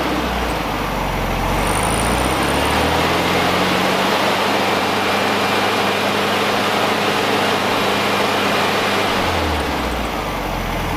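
Classic VW Beetle's air-cooled flat-four engine revved by hand at the carburettor: it rises to high revs about two to three seconds in, holds there steadily, then drops back toward idle near the end.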